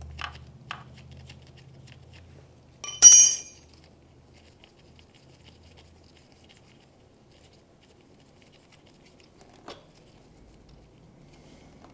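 Faint clicks and rustling of nitrile-gloved hands working a 12 mm wrench and the clutch cable's lower adjuster nut. One loud metal clank with a short high ring about three seconds in.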